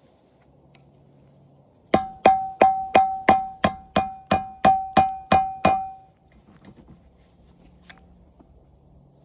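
About a dozen sharp hammer strikes on metal, evenly spaced at about three a second, each ringing at the same pitch, while fittings on an old television are being knocked loose.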